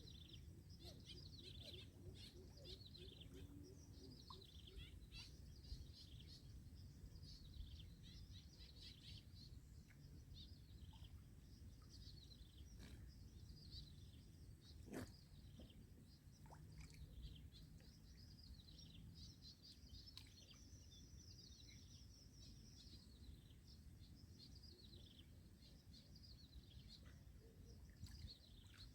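Many small birds chirping faintly and continuously, in quick overlapping calls, over a low steady background hum. One sharp click about fifteen seconds in.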